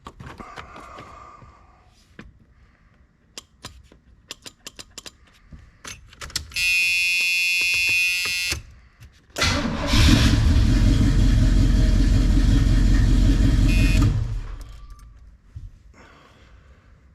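A scatter of small clicks, then a steady buzzing tone for about two seconds, then a 1981 Oldsmobile Cutlass's engine cranking and starting and running loudly for about four seconds before fading. The engine starts with the relay wire plugged back in.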